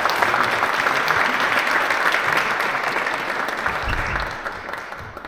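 Audience applauding, a dense steady clapping that fades off near the end.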